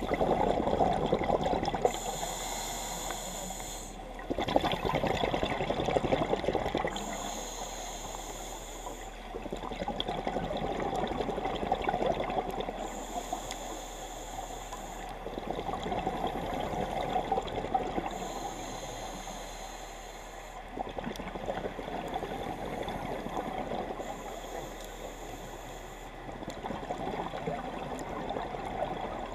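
Scuba diver breathing underwater through a regulator: five slow breaths, each a hissing inhale of about two seconds, alternating with the bubbling rush of the exhaled air.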